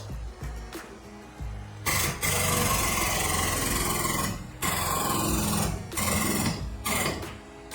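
A fast-hammering power tool, run in several bursts of one to two and a half seconds with short pauses, during auto body panel work. Background music plays under it.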